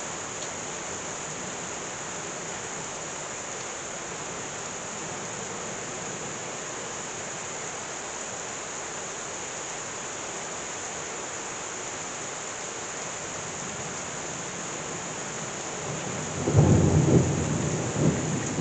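Heavy rain pouring down steadily. Near the end a loud clap of thunder breaks in and rumbles, with a second crack a moment later.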